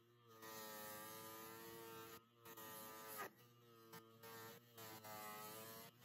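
Bench-mounted electric motor with a wire wheel on its shaft, running with a steady hum while a steel compass arm is held against the spinning wire brush, a scratchy scrubbing over the hum as rust and grime are brushed off. The hum sags briefly about three seconds in and the sound drops out for moments a few times as the piece is shifted.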